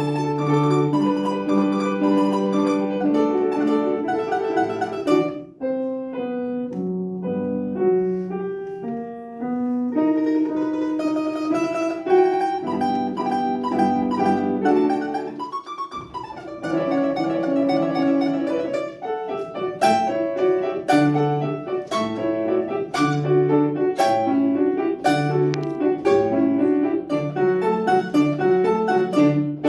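Solo piano playing a classical piece. A melody runs over an accompaniment, thins to a few separate notes for several seconds about a fifth of the way in, then returns to the full texture.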